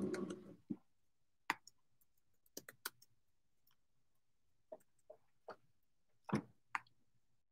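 Scattered light clicks and knocks of small objects being handled, about ten in all, some in quick pairs or threes; the loudest is a knock about six seconds in.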